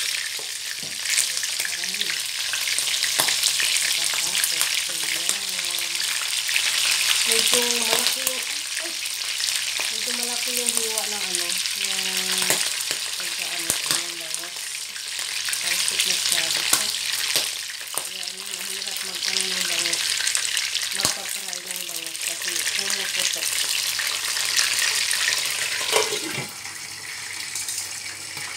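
Bangus (milkfish) steaks sizzling and spattering in hot oil in an uncovered nonstick wok, with sharp clicks of metal tongs against the pan as the pieces are turned. About two seconds before the end the glass lid is set back on with a clack and the sizzle drops and becomes muffled.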